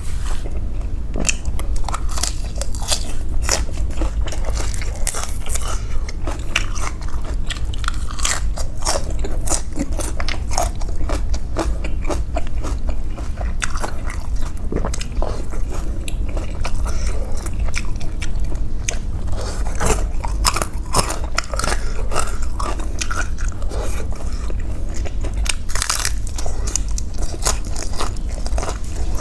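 A person eating a bowl of pork nam tok noodle soup with instant noodles and pork balls close to the microphone: continuous irregular chewing and moist clicks, over a steady low hum.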